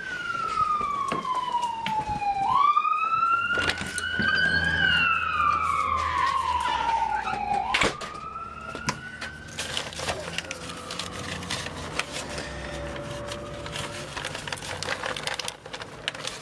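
Emergency vehicle siren wailing, its pitch sweeping slowly up and down every two to three seconds, growing fainter after about ten seconds. Scattered clicks and knocks are heard along with it.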